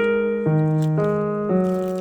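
Background piano music: sustained notes changing about every half second in a steady rhythm.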